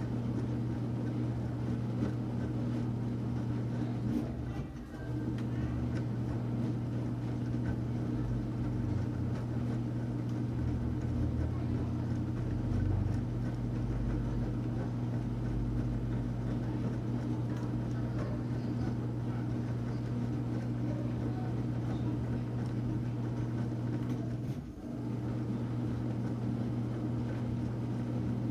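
Enxuta Luxo Soft washing machine running through a wash with a steady motor hum. The hum dips briefly about five seconds in and again near the end, and a deeper rumble comes and goes in the middle.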